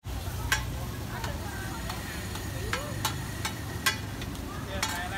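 Metal spatula clinking and scraping against a large flat griddle as egg-and-mussel omelettes fry, with sharp irregular clinks roughly every half second over a steady sizzle. Voices chatter faintly in the background.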